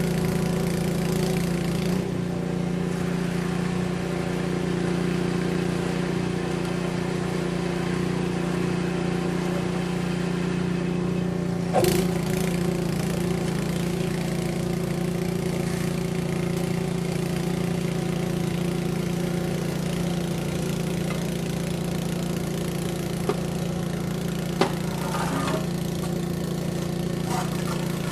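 An engine running steadily at an even speed, with a single sharp knock about twelve seconds in and a few light clicks near the end.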